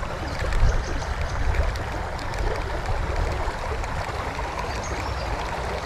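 Steady rushing of a shallow river flowing over rocks and riffles, the water running high, with a low rumble underneath.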